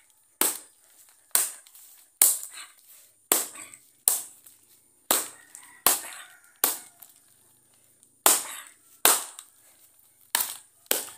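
About a dozen sharp hits, roughly one a second with one brief pause midway, as bare fists and a foot strike an upright wooden post.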